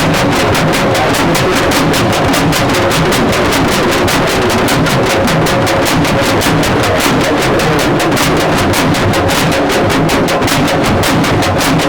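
Loud, fast, even drumming over a dense noisy din.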